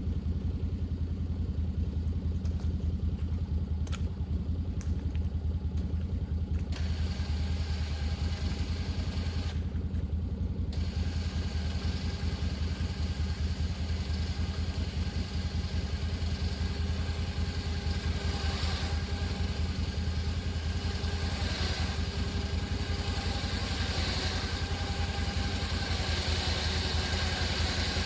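Can-Am side-by-side's engine running steadily at idle, a low even drone.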